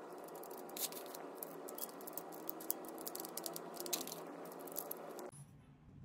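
Typing on a Keychron K2 mechanical keyboard with transparent keycaps: irregular clusters of key clicks. The sound changes abruptly and gets quieter a little after five seconds in.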